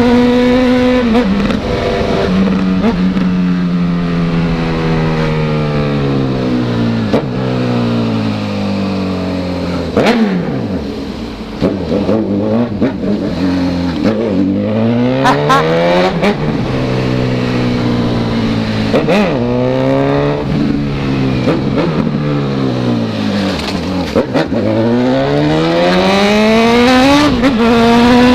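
Honda CB1000 inline-four motorcycle engine through a 4-into-1 exhaust, riding on and off the throttle. Its pitch falls in long slowdowns and climbs again when it accelerates, about halfway through and near the end. A few sharp cracks are heard during the slowdowns.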